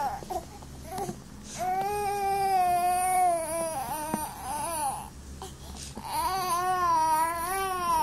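Young baby fussing: two long, wavering cries of about two seconds each, with a shorter cry between them.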